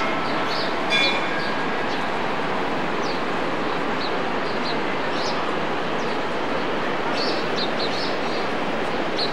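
Steady rushing of the Bhagirathi (upper Ganga) river, with small birds chirping on and off. A bell rings briefly about a second in.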